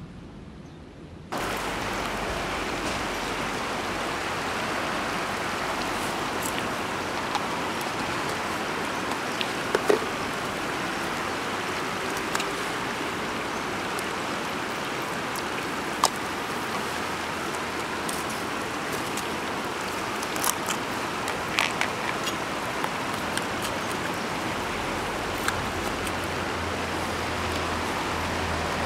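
Steady rushing of a river flowing over a stony bed, which starts suddenly about a second in, with a few scattered light clicks and taps on top.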